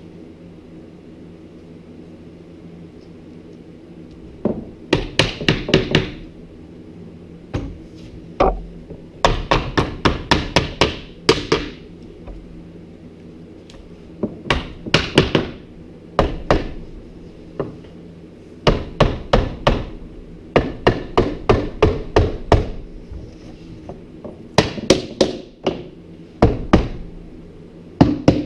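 Hammer striking wood in quick runs of several blows each, with short pauses between runs.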